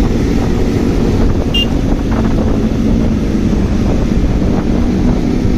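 Motorcycle engine running steadily under way, with wind buffeting the microphone. A short high beep sounds about a second and a half in.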